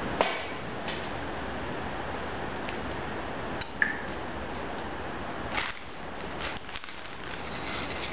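Steady background hiss broken by a few sharp clinks and knocks, one of them ringing briefly about four seconds in.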